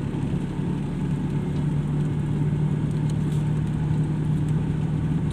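Car engine and road noise heard from inside the cabin while driving at a steady speed: an even low hum with a constant low drone.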